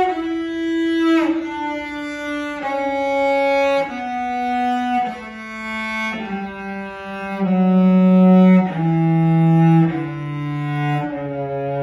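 Solo cello, bowed, playing a slow descending major scale: about ten sustained notes stepping down one at a time, each a little over a second long.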